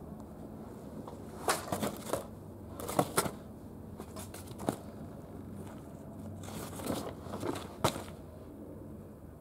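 Loose sheets of paper rustling and crinkling as they are moved by hand: a series of short, sharp crackles, some in quick clusters.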